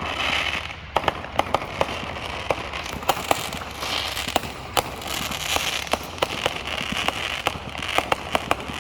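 Fireworks going off: a steady crackle and fizz of bursting shells with many sharp pops and bangs, several a second at times.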